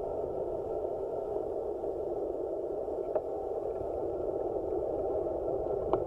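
Steady rushing of wind and tyre noise from a road bike in motion, picked up by a handlebar-mounted action camera, growing slightly louder as the bike speeds up. Two short clicks, one about three seconds in and one near the end.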